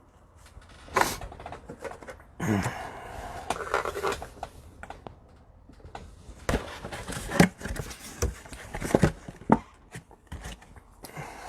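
Trading cards being handled: scattered light clicks and short scraping, rustling slides as the cards are shuffled and set down.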